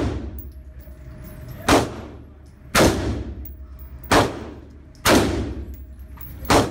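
AR-15-style semi-automatic rifle firing five single shots at uneven spacing of about a second, each shot followed by a ringing echo from the indoor range.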